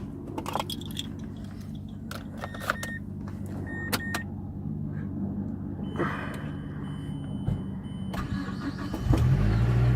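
Keys jangling, clicks and short electronic beeps over a steady low hum, then about nine seconds in the 2009 Mazdaspeed3's turbocharged 2.3-litre four-cylinder engine starts and keeps running, much louder, on freshly fitted spark plugs.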